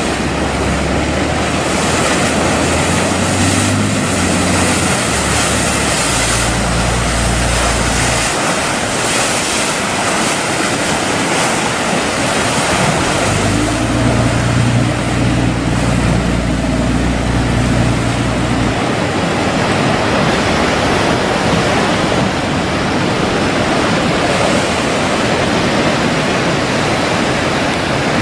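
Ocean surf breaking and churning in a harbour inlet, with heavy wind noise on the microphone. A deep low rumble sits under it for about the first eight seconds and again from about 13 to 19 seconds.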